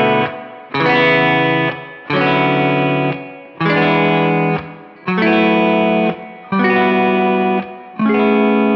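Fender Telecaster electric guitar strumming a chord progression up the key of A major, from B minor through E7 to A major 9 an octave up. The open B and high E strings ring through every chord, the twinkly Midwest-emo voicing, and a G major chord stands in for the G sharp diminished. A new chord comes about every second and a half, each one stopped just before the next.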